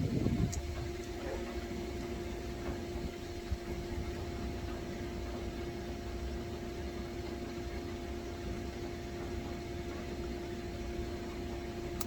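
Steady hum of running air-conditioning equipment: an even electrical-motor tone with low rumble underneath, broken by a brief knock at the start and a small click a few seconds in.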